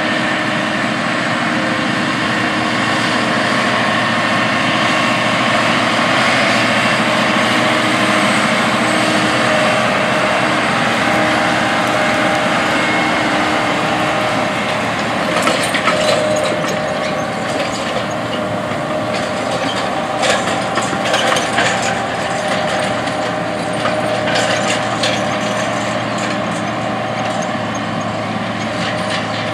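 John Deere 9520RX quad-track tractor running steadily under load while pulling a wide corn planter. From about halfway in, irregular clattering and knocking rides over the engine sound.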